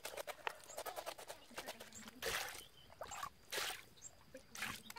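Water sloshing and splashing in a plastic basin as tripe is rubbed and washed by hand, in three short bursts with small wet clicks between.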